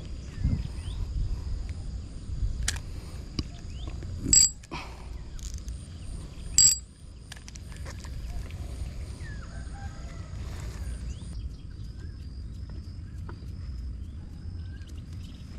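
Riverbank ambience: a steady high-pitched insect drone with a pulsing chirp over it that stops about eleven seconds in, under a continuous low rumble. Two short, sharp ringing clicks stand out about four and seven seconds in.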